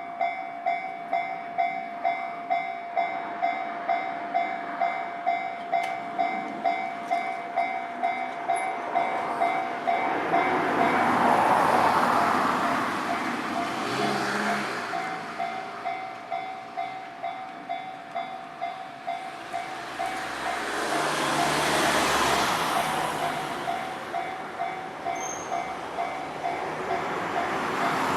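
Japanese level crossing warning bell ringing in a steady, even beat of electronic dings. A train passes, its noise swelling up loudest about twelve seconds in, and a second swell of passing-vehicle noise comes around twenty-two seconds in.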